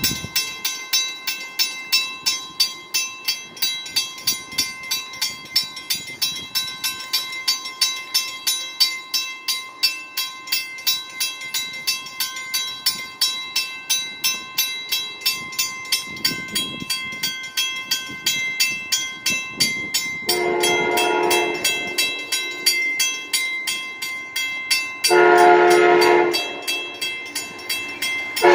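Grade crossing bell ringing steadily, about three strokes a second. About twenty seconds in, an Amtrak locomotive horn sounds two long chorded blasts and then a short one near the end, the start of the long-long-short-long crossing signal of a train approaching.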